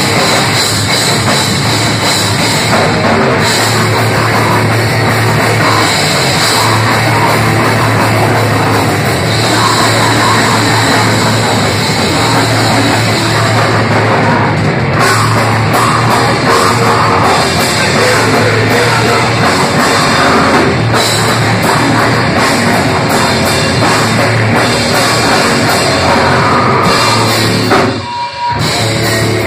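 Hardcore punk band playing live at full volume: distorted electric guitar and drum kit driving fast and dense. The music drops out briefly near the end.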